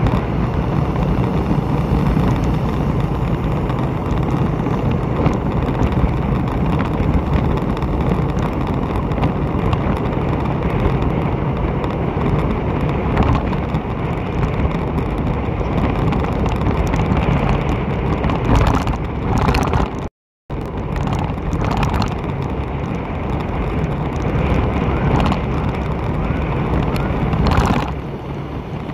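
Steady riding noise from a moving motorbike: wind rushing over the microphone with engine and tyre noise underneath, swelling now and then. The sound cuts out completely for a split second about two-thirds of the way through.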